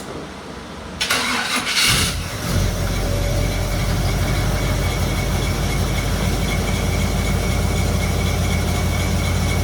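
Chevrolet C30's small-block V8 cranked off a half-dead jump box, catching after about a second of cranking and settling into a steady idle.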